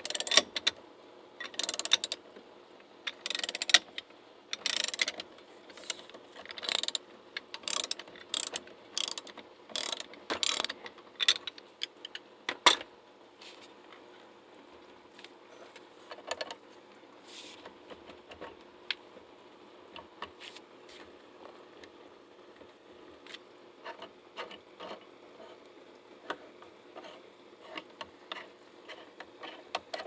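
Ratchet wrench clicking in short bursts of strokes, about one a second, as it cranks down the centre bolt of a steering wheel puller. The bursts stop about 13 seconds in, leaving faint scattered ticks.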